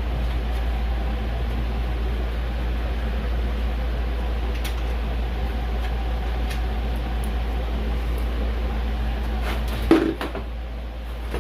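A steady low hum with a few faint clicks, and one short knock about ten seconds in.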